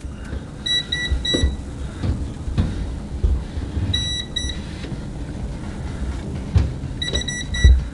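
KJ103 multimeter's piezo beeper sounding its non-contact voltage alert in quick runs of short high beeps, three times, as the meter sporadically picks up live voltage. Low rumble of the meter being handled underneath.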